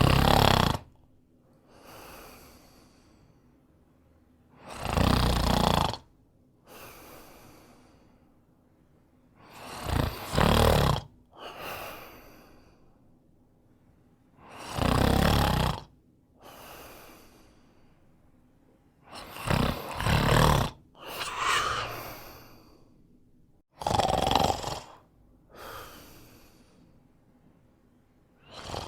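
A man snoring: a loud snore about every five seconds, each followed by a quieter breath.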